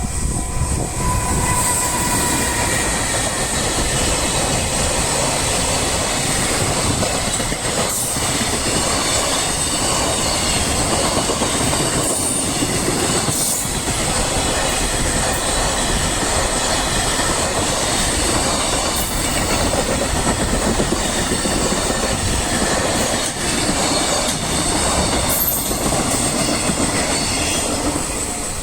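Long freight train hauled by a JR Freight EF210 electric locomotive passing over a level crossing, its wheels running steadily on the rails with a clickety-clack over the joints, for nearly half a minute.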